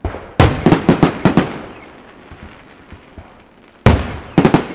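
Weco display fireworks: aerial shells bursting in rapid volleys. A run of about seven bangs starts about half a second in, and a second run of about four comes near the end, each bang echoing out.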